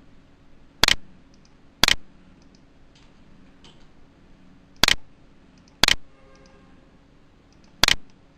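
Five sharp computer mouse-button clicks, two about a second apart, then two more, then one near the end, over a faint steady hum.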